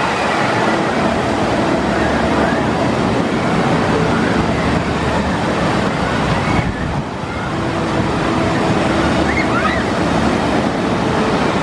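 Steady rushing of water running down a water coaster slide, with a brief dip in level about seven seconds in.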